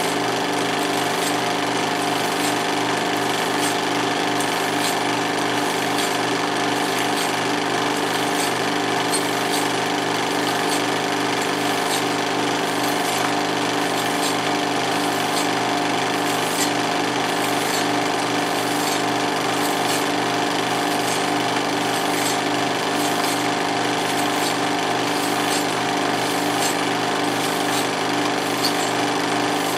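16mm film projector running: a steady motor hum with the fast, even mechanical chatter of the film being pulled through the gate.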